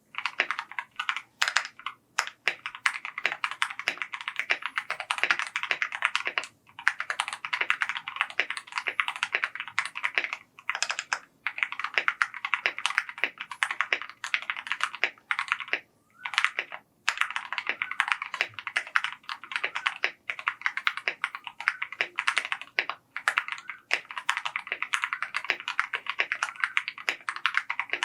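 Fast continuous typing on a mechanical keyboard: a dense run of keystroke clicks, broken by short pauses every few seconds.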